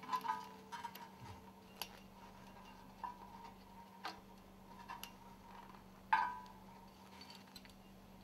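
Sparse light metallic clicks and ticks as the coiled spring around stuffing-box scraper ring segments is worked with a small pick to hook its ends together, with one sharper, briefly ringing click about six seconds in.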